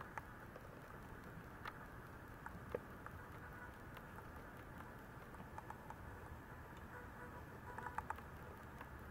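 Faint steady hiss with scattered soft clicks and rustles from a Maltese puppy stirring on its bed, with a quick cluster of clicks near the end as it moves.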